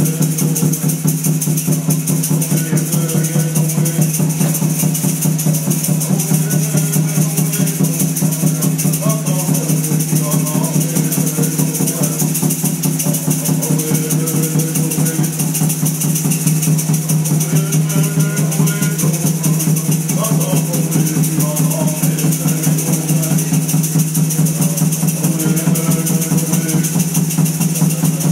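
Background song: a woman singing over a fast, steady shaker rhythm.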